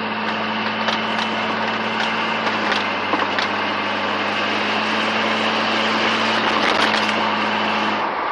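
Jeep driving down the road, heard from inside the cab: a steady engine drone under heavy road and wind noise, with scattered small rattles and knocks, including the muffler rattling where it hangs loose. The engine drone drops away near the end.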